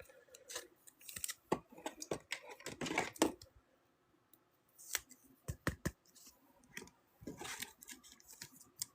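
Trading cards and pack material being handled: scattered faint clicks, taps and short scratchy rustles as cards are slid and shuffled.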